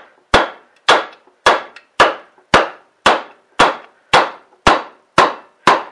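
Wooden hammer handle tapping a seized piston down the cylinder bore of a 5 hp Briggs & Stratton flathead engine block to knock it free, with eleven steady, moderate strikes, about two a second, each with a short metallic ring.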